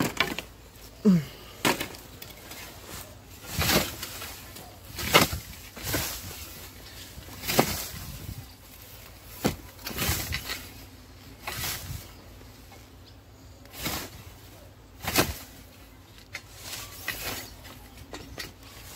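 Hand scythe swishing through grass and weeds, about a dozen swings, one every one to two seconds.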